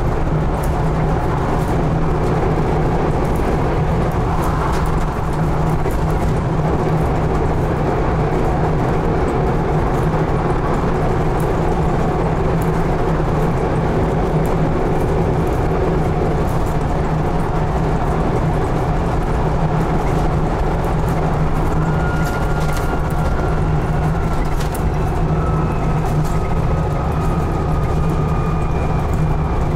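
Scania N280UD double-decker bus's five-cylinder diesel engine running steadily at speed, a loud constant drone heard from inside the passenger saloon. From about two-thirds of the way through, a thin whine slowly falls in pitch.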